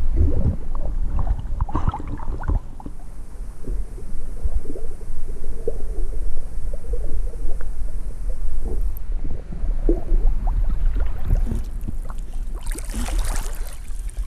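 Lake water sloshing and gurgling around a half-submerged action camera, with a heavy muffled rumble and small clicking bubbles. Louder splashing near the end as the swimmer paddles close by.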